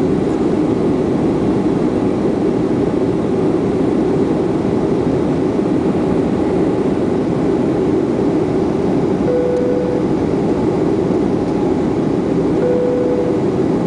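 Steady cabin drone of a jet airliner in flight, the engines and rushing air heard from a window seat over the wing. Two short steady tones sound about three seconds apart near the end.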